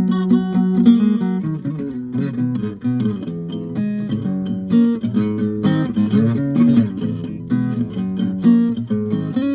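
Acoustic guitar being played: a steady run of plucked notes and chords, several notes sounding together with quick changes.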